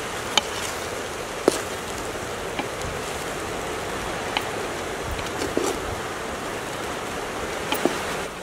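Cooked rice being mixed by hand in a large aluminium pot: a steady hiss of noise with a few light clicks and knocks against the pot.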